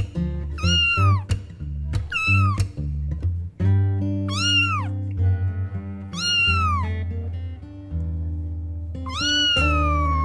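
A cat meowing over background guitar music: about five arched meows roughly two seconds apart, the last one long and drawn out near the end.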